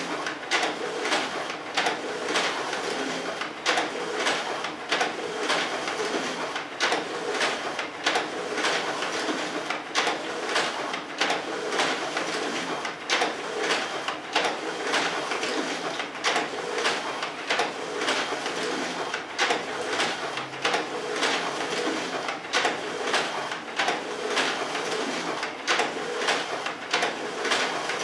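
Automatic document feeders of two office copiers drawing sheets through for double-sided scanning, one reversing each page to scan its back and the other scanning both sides in a single pass: a steady mechanical run with a rhythmic clatter of clicks and paper rushes about twice a second.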